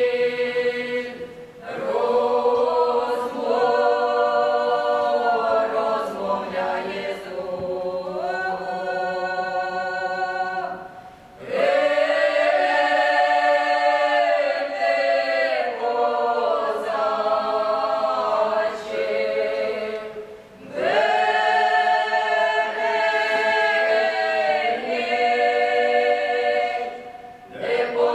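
Mixed choir of men's and women's voices singing a Ukrainian Cossack folk song a cappella in several parts. The long, held phrases break off briefly for breath four times.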